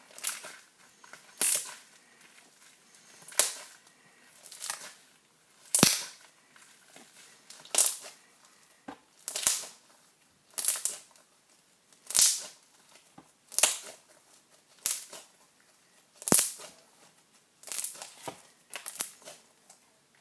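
Homemade slime being kneaded and pressed by hand, giving sharp wet pops and clicks about once a second as trapped air bursts out.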